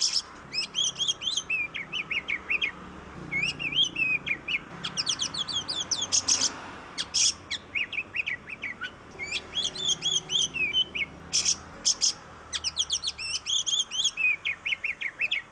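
Oriental magpie-robin (kacer) singing a fast, varied song of quick chirps and trilled notes, in bursts broken by short pauses.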